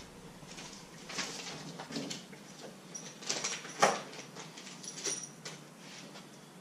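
Faint scattered clicks, taps and scrapes of small clutch parts being handled, with a couple of light metallic clinks about three and five seconds in.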